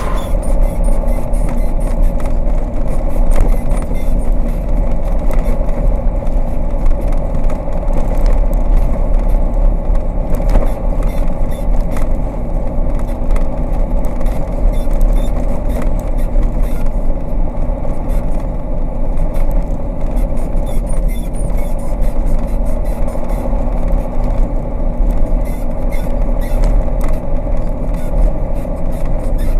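KAMAZ fuel-tanker truck's diesel engine running, heard from inside the cab, with a steady low rumble and frequent knocks and rattles as the truck jolts over a badly broken dirt road.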